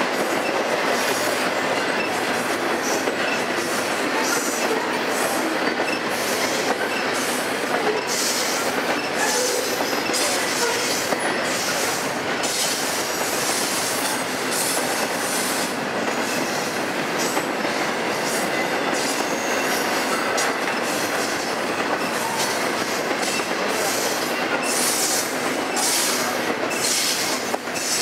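Double-stack intermodal freight train rolling past at speed: a steady rush of steel wheels on rail, with an irregular rattling clatter from the cars.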